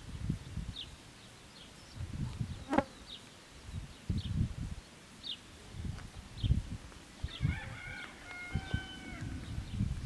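Rooster crowing once about three quarters of the way in, over short high bird chirps about once a second and uneven low rumbles of wind on the microphone.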